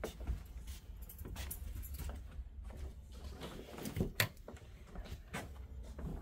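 Footsteps at a walking pace, with rustle and knocks from handling the recording phone, over a low steady hum. A sharper knock comes about four seconds in.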